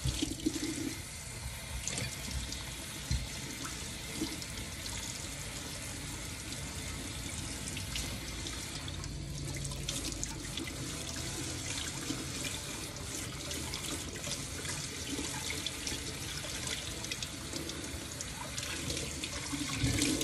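Kitchen sink tap running steadily, the water splashing over hair being rinsed and washed under it.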